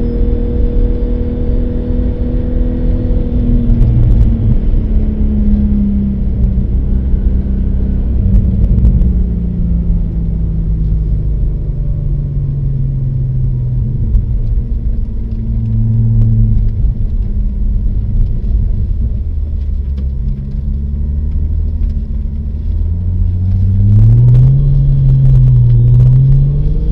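A car engine on an ice driving track, its revs sinking slowly through the first half over a steady low rumble, then climbing again near the end with a few sharp clicks.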